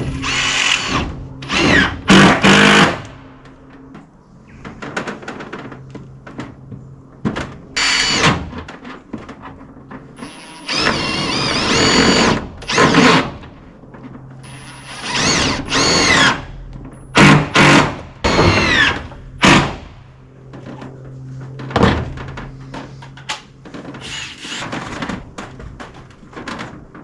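Cordless drill driver driving roofing screws into roof panels, in repeated bursts of a second or two whose motor pitch rises and falls.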